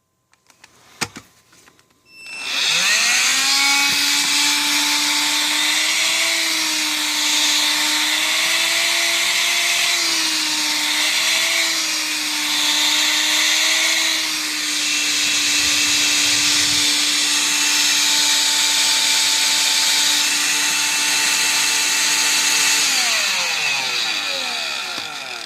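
Electrolux ZB3010AK 18-volt cordless stick vacuum running on its freshly replaced lithium battery pack: a click, then the motor spins up to a steady whine with a loud rush of air. It runs for about twenty seconds, wavering slightly in pitch, then winds down with a falling whine near the end.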